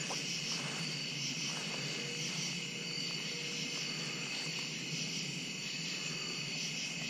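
Night insect chorus of crickets: a steady, high-pitched chirring.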